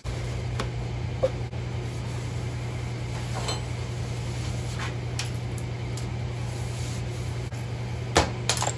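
Steady low machine hum with scattered sharp metallic clicks and clinks from a steel portal gear being wiped and worked with a pick, the sharpest pair near the end.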